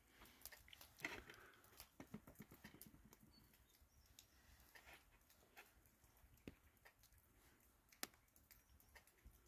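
Faint handling sounds of chicken pieces being threaded onto metal skewers over a metal bowl: scattered small clicks and taps, with a sharp click about a second in and another about eight seconds in.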